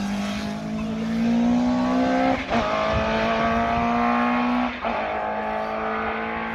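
Race car engine accelerating hard up a hillclimb course. The pitch rises steadily and drops back at two gear changes about two and a half seconds apart.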